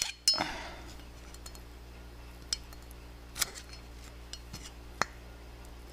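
Thin screwdriver tip scraping and clicking against the inside of a brake caliper's piston bore while prying the rubber piston seal out of its groove. A few sharp metallic clinks, the loudest just after the start with a short ring, then more spaced out.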